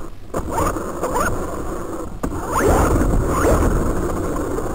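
Electric motor and geared drivetrain of a Feiyue Eagle RC buggy whining up in pitch in several short throttle bursts as it pulls away from standstill, over a low rumble of the car rolling on rough ground. A single sharp click about two seconds in.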